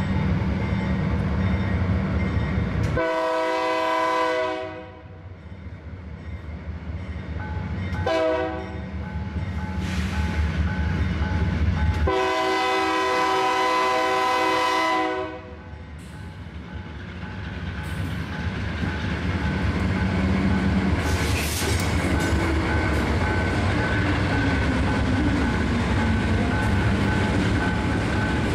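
Diesel locomotive air horn blown three times over the low rumble of the approaching engines: a long blast, a short one, then the longest. After that the locomotives roll across the level crossing with their diesel engines running and wheels clattering on the rails.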